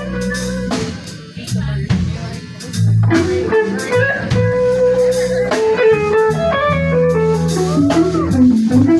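Live band playing an instrumental passage: electric guitar leading with a melodic line and bent notes near the end, over bass guitar and a drum kit.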